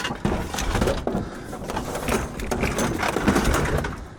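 Scrap items being handled and loaded onto a truck: irregular knocks, clatter and scraping.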